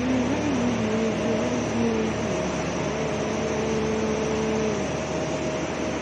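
Steady machinery noise inside a factory building, with a droning hum that wavers and steps in pitch.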